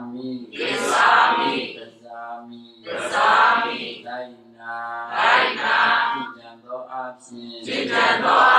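Buddhist congregation chanting together in unison, a devotional recitation. Loud group phrases come about every two seconds, with held notes between them.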